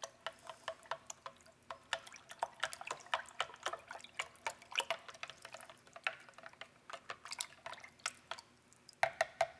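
A spoon stirring and scraping in a glass measuring cup of water: quick, light, irregular clinks against the glass with liquid swishing, as a vegetable base paste is worked into the water without dissolving.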